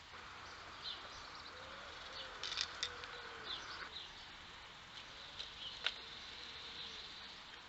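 Small birds chirping intermittently, with a rustling hiss and a few sharp clicks from a red fox nosing about in dry leaf litter. The loudest click comes near six seconds in.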